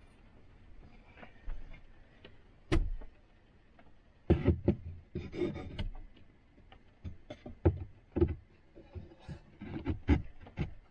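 A home-made wooden flip-up worktop extension being raised and propped on its support stick: a string of irregular knocks and clunks, the loudest in the middle and near the end.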